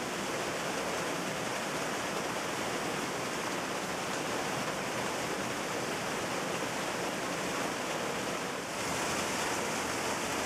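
Steady rush of flowing water at a dam, an even hiss-like roar with no breaks.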